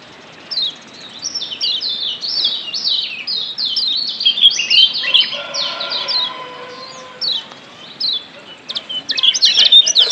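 Lombok yellow white-eyes (kecial kuning, a Zosterops) calling in quick runs of short, high, downward-sliding chirps. There is a brief pause at the start, a thinner stretch about three-quarters through, and a dense burst of chirps near the end.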